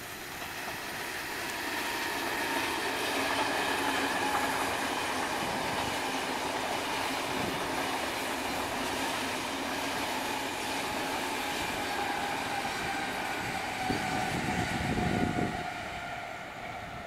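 A KTT double-deck through train, hauled by a Lok2000 electric locomotive, passing at speed: a steady rolling rumble of wheels on rail that swells and holds, with faint high tones slowly falling in pitch. There is a brief louder rush about fourteen seconds in, and the sound fades as the train goes away near the end.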